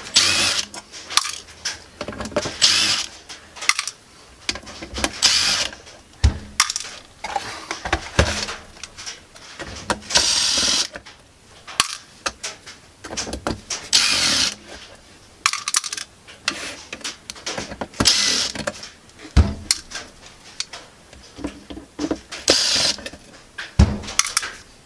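Cordless drill-driver running in about seven short bursts of a second or less, backing out the screws of the camera's metal side covers. Short clicks and knocks come between the bursts.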